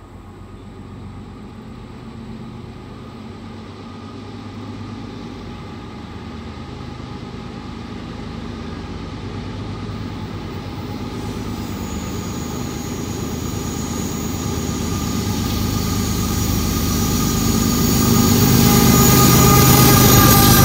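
Norfolk Southern freight train's diesel locomotives approaching, their engine drone growing steadily louder. A high whine joins in about halfway and strengthens as the train draws near.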